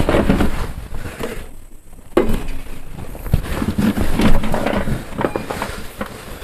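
Hand-tool handling noise: scattered clicks and knocks of a wrench working the brake-hose fitting bolt loose on a motorcycle's front brake caliper.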